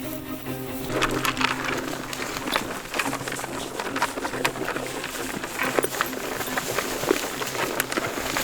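Goats moving through brush and leaf litter: a dense run of quick rustling and crunching steps starting about a second in.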